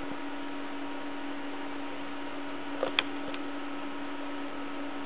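Steady electrical hum over a background hiss, with two brief sharp clicks close together about three seconds in.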